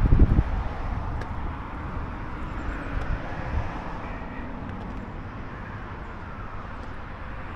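Outdoor traffic noise from passing road vehicles, a steady wash of sound that swells a little in the middle. A brief low rumbling thump comes in the first half second.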